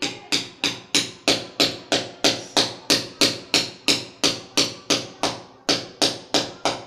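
Hammer striking a steel U-clamp rod, driving it into a chemical-anchor-filled hole in a concrete ceiling slab. The blows come steadily, about three a second, each ringing briefly.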